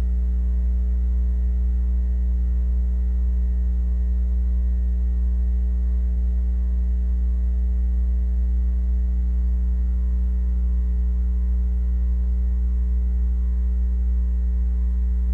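Steady low electrical mains hum with a faint buzz of overtones above it.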